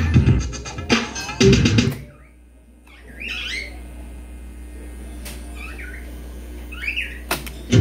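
Rock music with guitar and drums playing from a cassette on a Gradiente CD-5500 tape deck. The music stops about two seconds in, leaving a low steady hum. Near the end a couple of clicks from the transport keys are heard and playback starts again.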